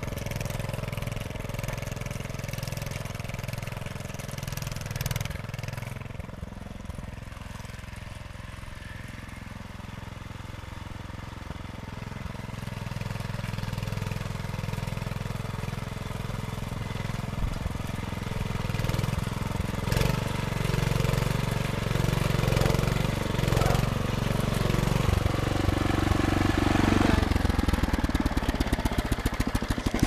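Walk-behind rotavator's small engine running steadily as its tines till the soil, getting louder over the last few seconds.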